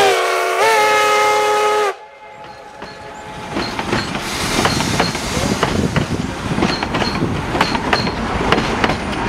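Chime steam whistle of Cumbres & Toltec K-36 narrow-gauge locomotive No. 487, several notes together, sagging and then rising in pitch as it is worked, cut off sharply about two seconds in. Then the passenger cars roll past, their wheels clicking over the rail joints, growing louder.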